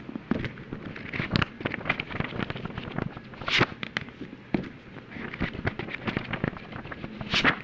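Paper pages of a book being turned and flipped quickly: a dense run of crisp rustles and snaps. A louder sweeping page turn comes about three and a half seconds in, and another near the end.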